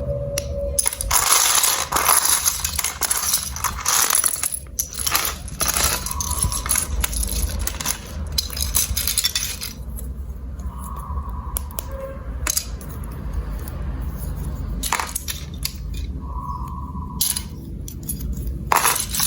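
Marbles rolling and clattering through a plastic building-block marble run: a low rolling rumble with long stretches of rapid clicking and rattling, and further short bursts of clatter later on. Two brief pitched tones sound in between.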